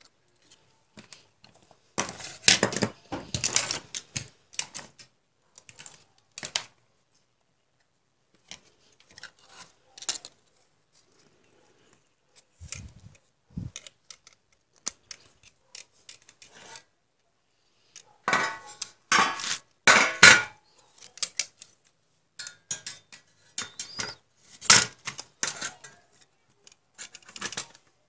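Handling noise of LCD monitor parts: irregular clicks, knocks and rattles of circuit boards, plastic cable connectors and the metal chassis frame being moved and fitted together. It comes in clusters, loudest about two seconds in and again from about eighteen seconds in.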